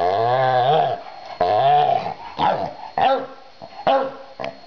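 Glen of Imaal terrier growling in play with a plush toy in its mouth: two drawn-out growls in the first two seconds, then several short, sharp barks.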